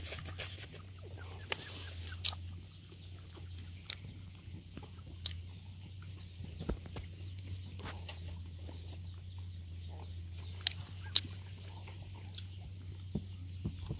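A dog and her puppies moving and eating among dry leaves and twigs: scattered small clicks and rustles, over a steady low hum.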